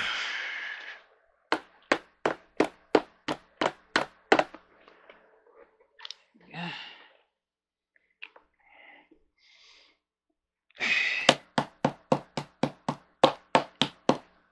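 Repeated sharp taps of a screwdriver's plastic handle butt knocking a plastic cover cap into a screw hole on an office chair armrest. The taps come in two quick runs of about nine or ten, roughly three a second, one near the start and one near the end.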